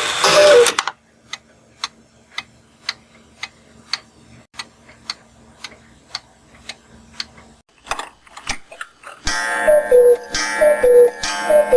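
A clock ticking evenly, about two ticks a second, with a faint low hum beneath. It ends with a few irregular clicks. Near the end a louder, musical clock effect starts, with a short falling tone repeating about twice a second.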